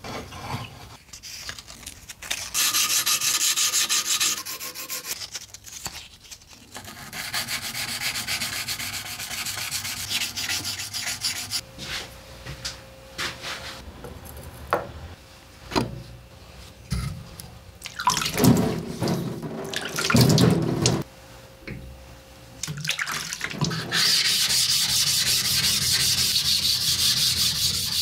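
Hand abrading of a steel knife blade: stretches of rasping, rubbing strokes with scattered knocks and handling clicks between them. Near the end comes steady wet scrubbing on a green whetstone.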